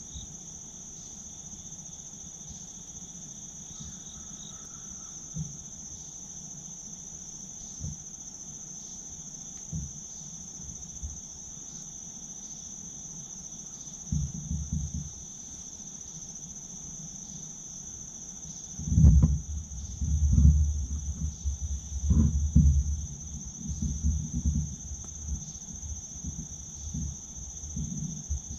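Steady high-pitched chorus of insects with a faint regular pulse. A few light knocks early on give way, about halfway through and most strongly in the second half, to loud low rumbling bumps of the camera being handled and shifted.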